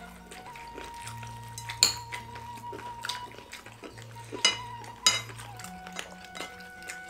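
Spoons clinking against ceramic plates and bowls, with three sharp clinks about two, four and a half and five seconds in and some lighter ticks, over background music with a held note and a low bass line.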